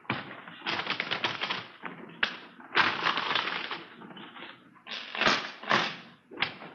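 Radio-drama sound effect: several bursts of rapid clicking and clattering of small hard objects, with a few single sharp clicks between them.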